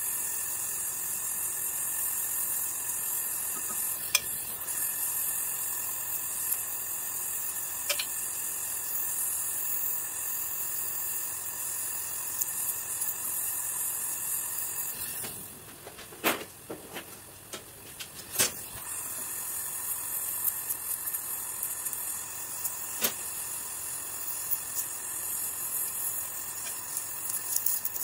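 LPG gas torch flame hissing steadily as it melts aluminum filler rod into a cast aluminum casing, with scattered sharp pops. About halfway through the hiss drops for a few seconds, with several louder pops, then comes back.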